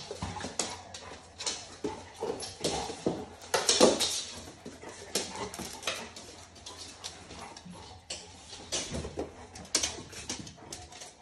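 Dog moving about on a wooden floor, its claws clicking and scrabbling in quick irregular taps, with short whimpers in among them.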